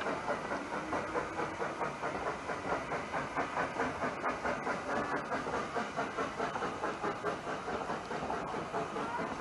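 Narrow-gauge steam train under way, heard from an open carriage window: the locomotive's exhaust beating evenly at about three beats a second, over a steady hiss and running noise of the wheels on the track.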